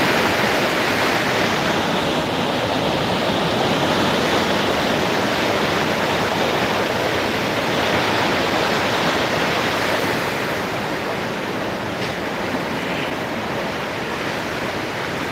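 Whitewater rapids of a fast mountain river rushing over rocks: a steady, loud wash of water, easing slightly after about ten seconds.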